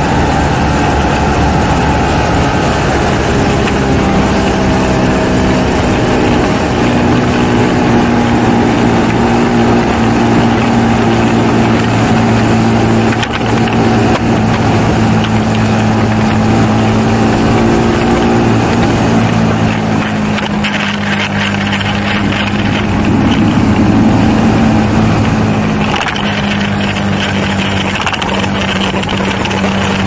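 BMW G310R's 313 cc single-cylinder engine running steadily as the motorcycle is ridden, with wind and road noise mixed in. The engine note shifts about twenty seconds in and settles into a steadier hum over the last few seconds.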